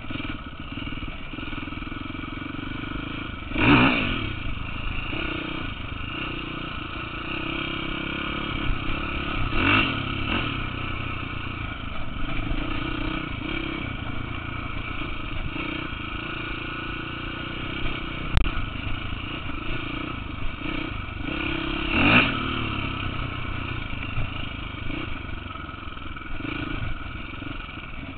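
Dirt bike engine running steadily on a trail ride, opened up briefly three times: a few seconds in, about ten seconds in, and a little past twenty seconds.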